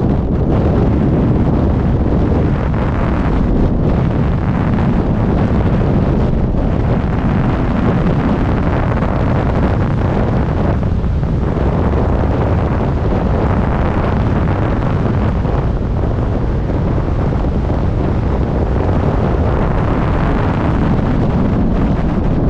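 Freefall wind buffeting a skydiver's camera microphone: a loud, steady rush, heaviest in the low range.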